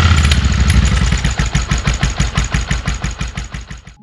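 Motorcycle engine idling with an even pulsing beat of about ten pulses a second, fading away toward the end.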